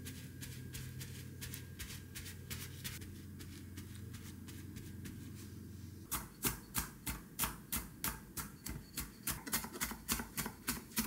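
Faint pats and rustle of a paper towel pressed onto raw beef short ribs, then from about six seconds in, a chef's knife chopping green onions on a wooden cutting board with quick, even strokes, about three to four a second.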